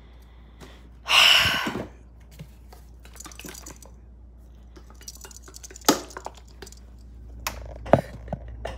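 Bottles and jars clinking and knocking as they are moved about in a refrigerator, with a brief loud rustle about a second in.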